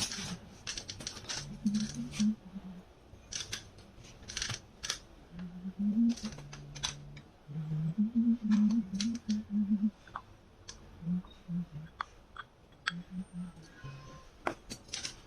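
Scattered sharp clicks and clinks of scrap parts being handled, over quiet background music with a simple low melody.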